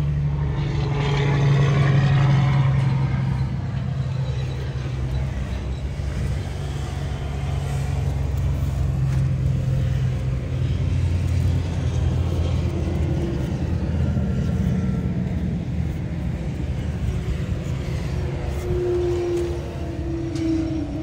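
Steady low engine drone that shifts slightly in pitch and strength, with a faint higher tone that falls slightly near the end.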